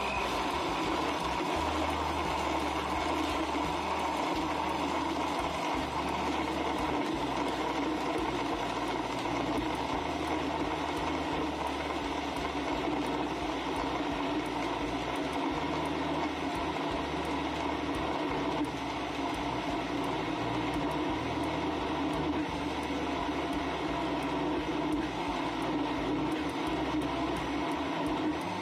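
Electric countertop blender running steadily at high speed, blending ice into a frozen drink.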